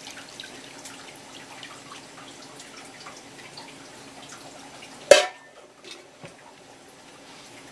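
Clam-boiling liquid being poured from a saucepan onto a pan of shelled asari clam meat, a steady splashing pour with small drips. About five seconds in, as the pour ends, a single sharp clank with a brief ring is the loudest sound.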